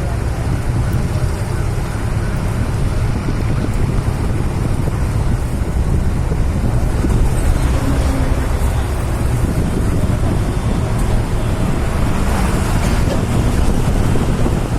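Wind buffeting the microphone over a steady low rumble of vehicle noise.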